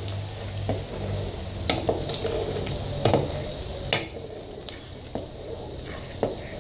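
Spatula stirring a thick, still-bubbling milk-and-sugar sweet (doce de leite) in a tall metal pot, with a soft sizzling bubble and a few sharp knocks and scrapes of the spatula against the pot. The mixture has just come off the fire at its setting point and is settling down from the boil.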